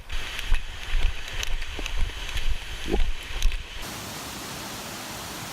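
Footsteps on a trail with thumps of the handheld camera, about two steps a second; about two-thirds of the way in it cuts to the steady rushing hiss of falling water.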